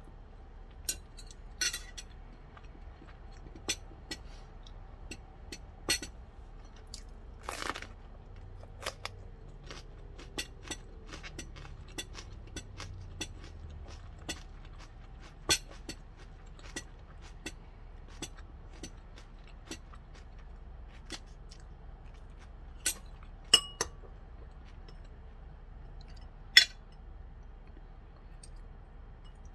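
Crunching bites and chewing of a raw cucumber chili pepper, with sparse sharp clicks of metal chopsticks and a spoon against ceramic dishes, the loudest clicks near the end.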